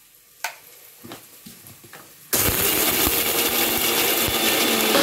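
A few light knocks as the mixer-grinder jar and lid are handled on the base, then the mixie motor switches on about two seconds in and runs loud and steady, its blades grinding a dry masala of coconut, whole spices and poppy seeds to powder with no water yet added.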